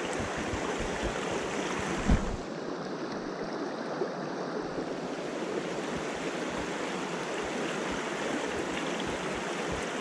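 Mountain stream running over a shallow rocky riffle: a steady rush of water. There is a single thump about two seconds in.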